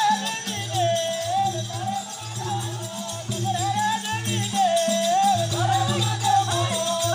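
Rajasthani folk devotional music: one singer's wavering melody over a steady drum beat and jingling percussion.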